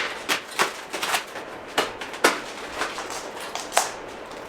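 Irregular light clicks and rustles of small accessories and their packaging being handled and set down: about ten short, sharp sounds spread over four seconds.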